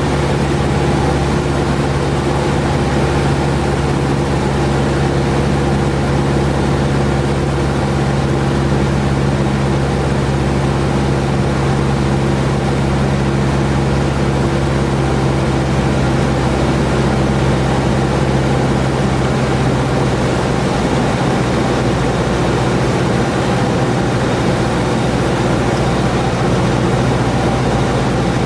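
Cessna 172's piston engine and propeller droning steadily. About twenty seconds in the engine note drops to a lower pitch, a power change.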